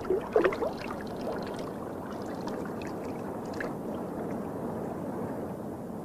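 Water swirling in a whirlpool vortex: a steady rushing, gurgling wash with no breaks.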